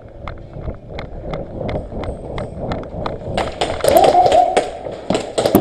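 A player's running footsteps, at about three strides a second. Past the midpoint comes a quick clatter of sharp clicks with a brief shout.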